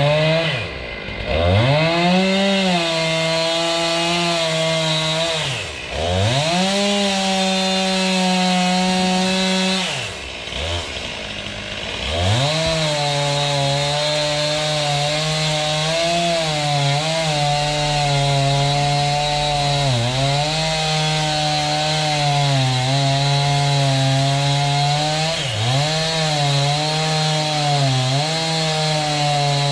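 Chainsaw engine running at high revs, held wide open for several seconds at a time, with its pitch briefly dropping back and climbing again five times.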